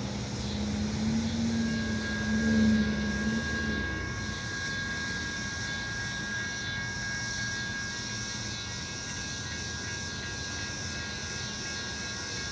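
Diesel locomotive of an approaching Metra train running, a steady drone. A strong low tone in it ends about four seconds in, and a faint steady high whine carries on over it.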